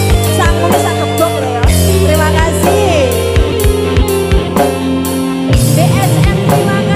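Live dangdut band with kendang hand drums, keyboard and bass over a steady beat, with a woman singing into a microphone through a loud PA.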